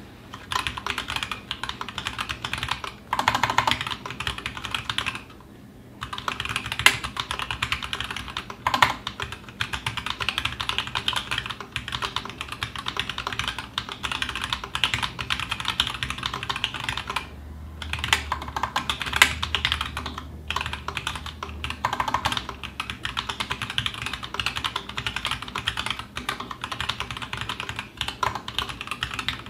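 Fast, continuous typing on a TGR Alice custom mechanical keyboard with stock, unlubed 78g Zealio v2 tactile switches and GMK keycaps. The typing breaks off briefly about five seconds in and again a little past the middle.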